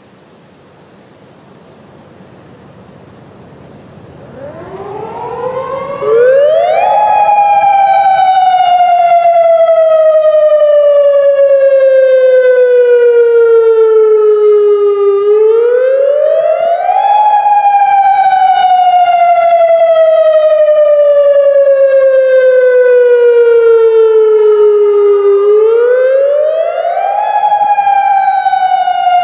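Federal Signal Modulator 3012 electronic warning siren starting up a few seconds in and sounding a loud wail. Its pitch climbs quickly, then sinks slowly over about eight seconds, and this cycle repeats three times.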